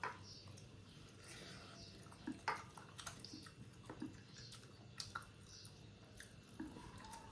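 Faint eating sounds: chewing with scattered small clicks and smacks as fingers scoop rice from a plate and bring it to the mouth.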